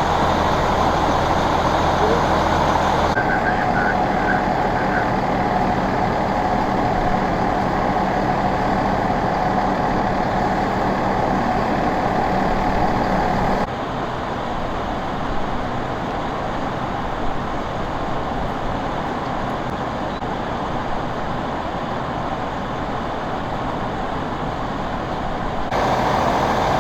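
Fire apparatus engines running at a fire scene: a steady, loud mechanical drone. The sound changes abruptly three times, with a steady whine in the middle stretch.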